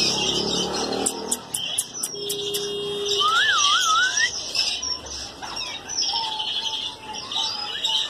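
Many caged shop birds chirping and chattering together. Partway through there is a quick run of clicks and a single wavering whistle that rises and falls.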